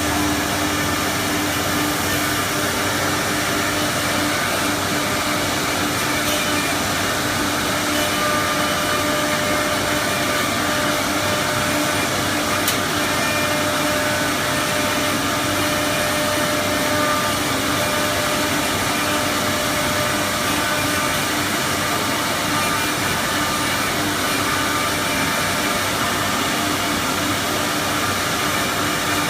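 A 4-axis CNC wood router running steadily: an even machine noise with a constant whine from its high-speed spindle.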